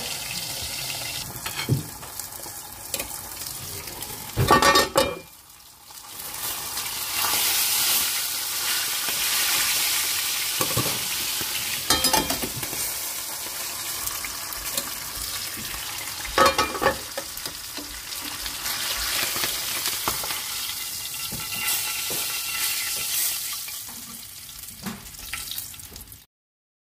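A whole pompano frying in hot oil in a lidded skillet: a steady sizzle, broken by a few sharp metal clinks from the pan lid and tongs. The loudest clatter comes about five seconds in. The sound cuts off suddenly near the end.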